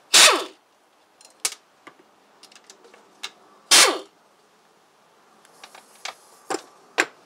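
Air-powered wrench running in two short bursts, about three and a half seconds apart, as it spins off bolts holding the brake assembly on a Hydro Gear hydrostatic transmission. Between and after the bursts come light metallic clicks and knocks of the tool and parts.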